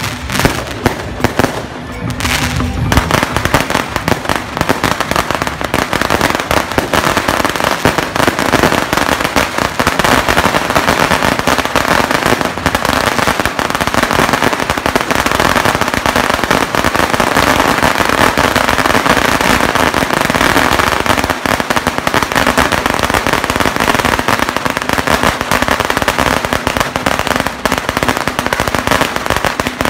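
A long string of firecrackers burning on the ground: a few separate sharp bangs at first, then from about three seconds in a dense, unbroken crackle of rapid-fire reports.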